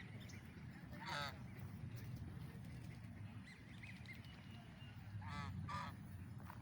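Large waterfowl honking: one call about a second in, then two in quick succession past the five-second mark, over a steady low rumble.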